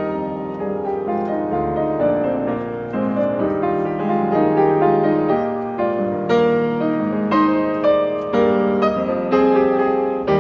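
Piano music: notes and chords struck one after another, each left to ring and fade.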